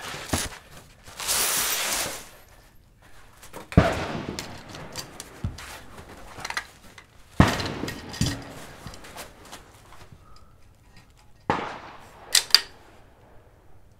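.22LR bolt-action rimfire rifle (Vudoo V-22) fired three times, the sharp shots about four seconds apart, each with a short echo. Smaller clicks and handling noise fall between the shots, and rustling comes near the start as the shooter settles into position.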